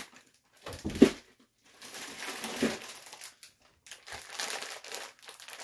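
Plastic food bags crinkling as they are handled, in three bursts, with a louder thump about a second in.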